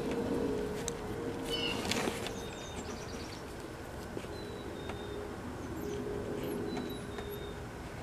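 Scattered short bird chirps, a few brief calls, over a faint steady hum.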